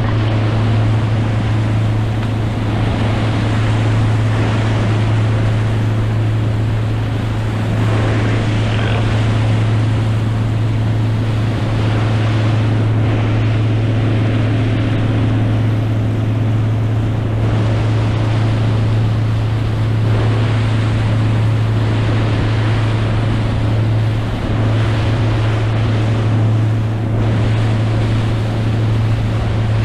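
Motorboat engine running at a steady speed, a constant low drone, with water rushing past the hull and wind on the microphone.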